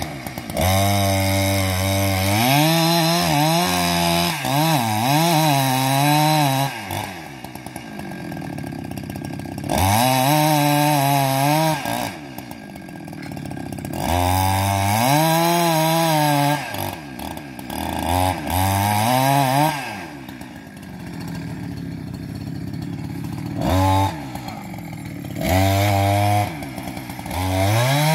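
Chainsaw cutting into a tree trunk: the engine runs up to full throttle in about six bursts, the longest in the first seven seconds, its pitch sagging and wavering under load, and drops back to a lower speed between cuts.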